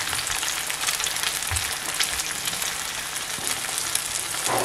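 Two eggs frying sunny-side up in a metal frying pan: a steady sizzle with fine, rapid crackling pops.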